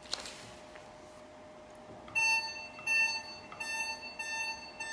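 Gbox10F diode laser beeping as it emits in repeat-pulse mode, the beep signalling that the laser is firing. It starts with a single click, then comes a pause of about two seconds. The beeps then resume, first a couple of longer beeps under a second apart, then shorter, quicker ones.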